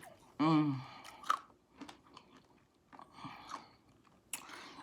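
Chewing and crunching a mouthful of Crunch 'n Munch Birthday Cake candy-coated popcorn, with crisp crunches scattered through, and a short wavering "mmm" hum about half a second in.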